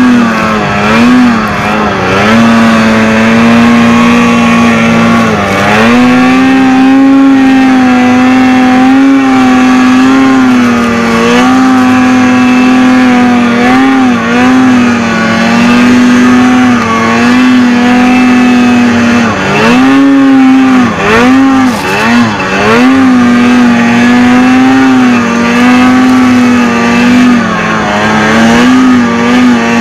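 2019 Arctic Cat XF 8000 snowmobile's two-stroke twin engine running at high revs while the sled pushes through deep powder. The pitch holds steady, with several brief drops and climbs as the throttle is eased off and reapplied, most of them about twenty seconds in.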